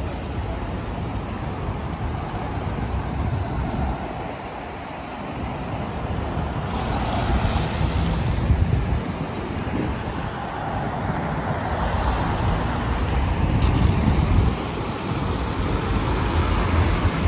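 Street traffic on a wet multi-lane road: cars and trucks passing with tyre hiss and engine rumble, swelling louder as vehicles go by about seven seconds in and again around twelve to fifteen seconds in.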